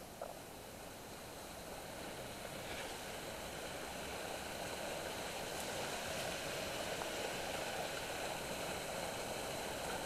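Water running over a small rocky creek cascade: a steady rush that grows louder over the first several seconds, then holds.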